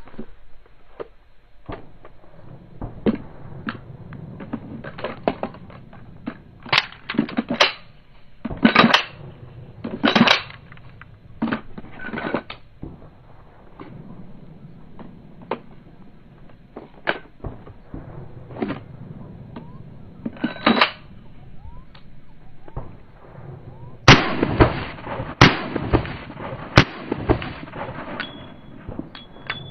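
A handgun during drills: a string of sharp, irregularly spaced cracks and clacks over a low background, with a quick cluster of the loudest ones near the end.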